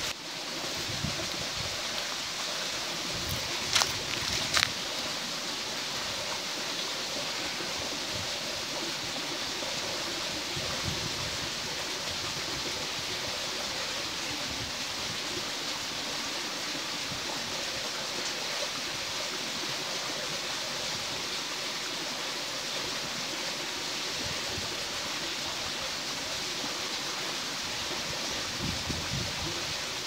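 Waterfall's falling water rushing steadily, an even hiss that does not change. Two brief clicks sound less than a second apart about four seconds in.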